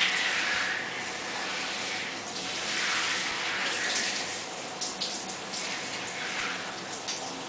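Shower running, its spray hissing and splashing onto a clothed person and the shower tray, swelling and easing every few seconds.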